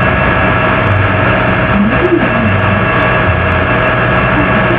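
Loud, steady noise with a constant hum and several unchanging tones running through it, and a faint short wavering sound about two seconds in.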